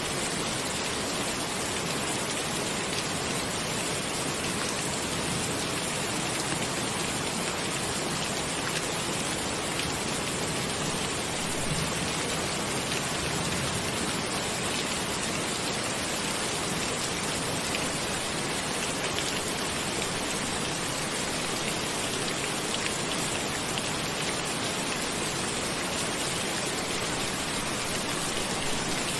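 Steady rain, with the fine patter of individual drops.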